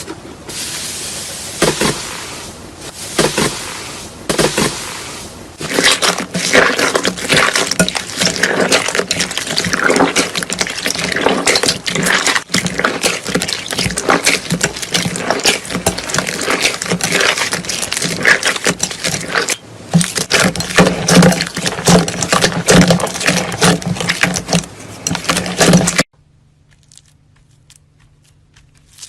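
Slime being squished and worked by hand: dense, wet crackling and popping clicks, lighter at first and louder after a few seconds, stopping abruptly near the end.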